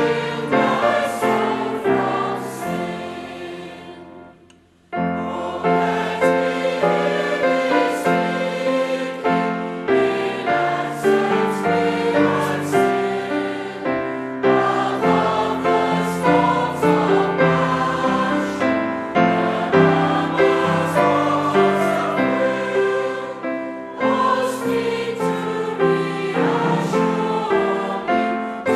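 Choir singing church music. It fades out about four seconds in, breaks off for a moment, then a new passage starts at full level.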